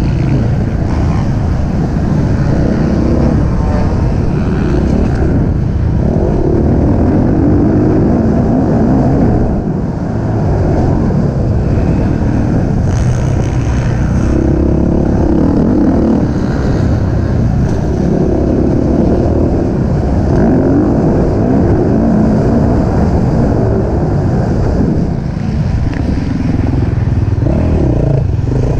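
Racing engine running hard through a race, its pitch and load rising and falling every few seconds as it is driven through the course, with brief easings about a third of the way in and near the end.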